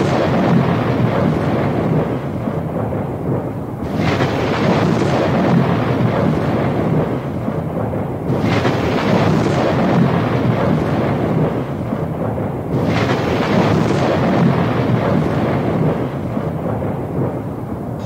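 Loud, continuous rushing and rumbling noise that swells in waves about every four seconds.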